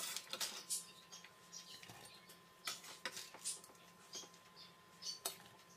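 Faint, irregular crackling and ticking of hot oil under diced potato, carrot and onion in a stainless steel pot, just beginning to fry. A faint steady hum lies underneath.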